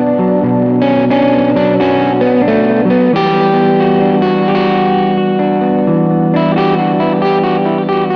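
Instrumental guitar music: layered, sustained guitar notes, with the chord changing about three seconds in and again near the end.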